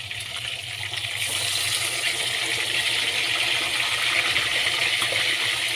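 Fish deep-frying in hot oil: a steady sizzle that grows louder about a second in.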